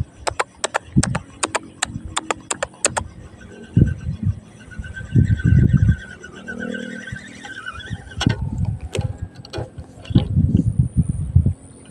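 A quick run of about a dozen sharp clicks over the first three seconds, a few more near the end, and low rumbling thumps in between: handling or wind on the phone's microphone.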